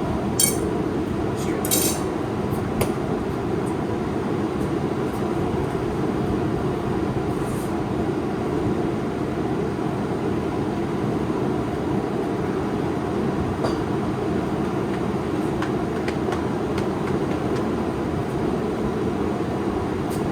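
A forge running with a steady, even rushing noise while a blade heats for forging, with a few sharp metallic clinks of steel on steel early on and once more past the middle.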